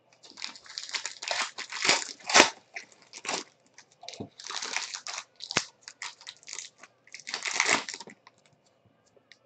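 Foil trading-card pack crinkling and tearing as it is ripped open by hand: a run of crackling rustles with a couple of sharp snaps, the loudest about two and a half seconds in.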